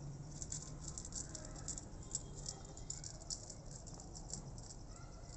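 A cat eating dry kibble from a plate: quick, irregular crunching and clicking of the pellets, starting about half a second in.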